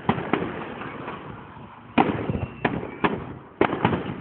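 Aerial fireworks exploding: a string of about seven sharp bangs and cracks, the loudest about two seconds in, with rumbling echoes trailing after each.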